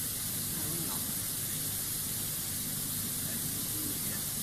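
Steady hiss of recording noise, with no distinct event.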